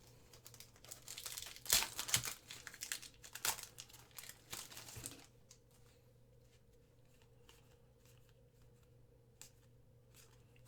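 A foil trading-card pack wrapper being torn open and crinkled for about five seconds, then quiet apart from a few faint clicks of cards being handled.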